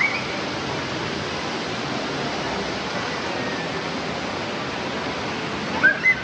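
Steady rushing background noise, like running water, with a short high squeak at the start and two quick squeaks near the end.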